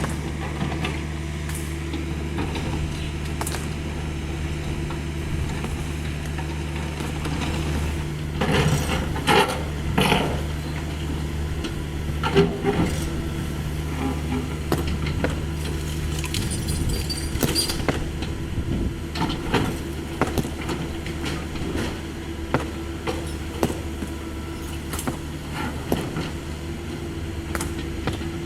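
Cat 305.5E2 mini excavator's diesel engine running steadily under work, with scattered knocks and clatter from the bucket working rubble, heaviest in a few clusters partway through.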